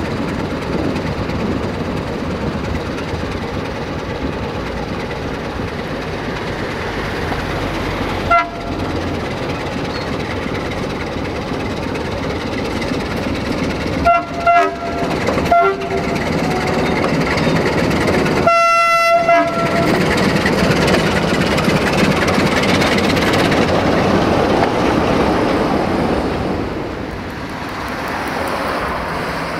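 Train running through the station with a steady rumble of wheels on rails, louder in the middle as it passes. Its horn sounds a short blast about eight seconds in, three quick short blasts around fourteen to sixteen seconds, then one longer blast a few seconds later.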